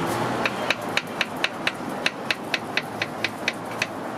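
Knife slicing a peeled banana against a cutting board: a quick, even run of sharp taps, about four a second, as each slice is cut through to the board.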